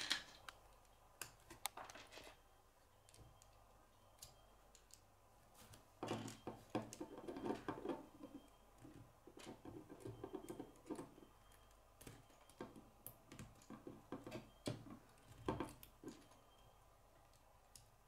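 Faint clicks and rattles of plastic K'nex connectors and rods being handled and snapped together by hand, with a denser run of clicking about six to eleven seconds in.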